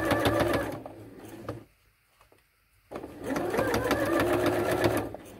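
Electric sewing machine stitching slowly in two runs: it runs, eases off and stops for about a second around two seconds in, then starts again and runs until shortly before the end.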